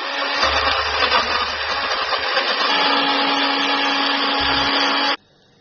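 Miyako electric countertop blender running at full speed, grinding chillies, shallots, garlic, candlenuts and tomato into a spice paste. A steadier hum settles in about halfway, and the motor cuts off suddenly near the end.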